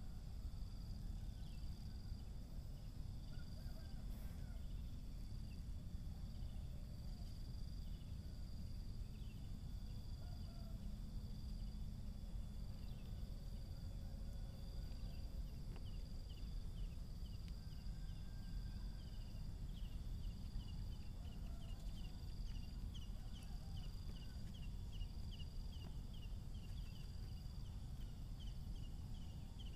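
Outdoor nature ambience: insects trilling steadily in repeated pulses. Past the middle, a quick series of short chirps joins in and grows denser, all over a low rumble.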